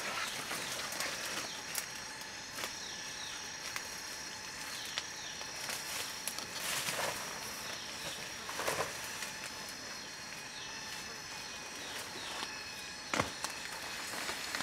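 Footsteps and rustling through leafy forest undergrowth, over a steady high insect drone. A single sharp crack about thirteen seconds in is the loudest sound.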